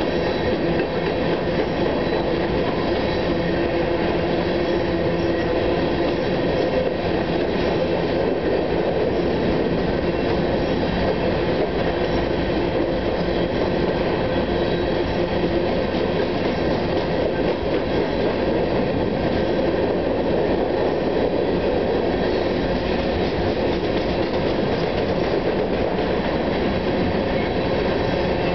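Freight train's coal hopper cars rolling past on the rails, a steady rumble and rattle of wheels and car bodies that does not let up.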